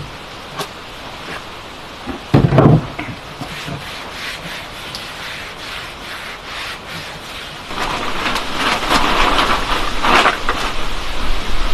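Heavy rain in a thunderstorm, a steady hiss, with a short low thud about two seconds in. The rain grows louder and harsher from about eight seconds in.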